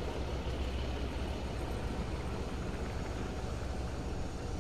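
Steady low rumble of idling diesel engines, with a faint steady hum on top and no distinct events.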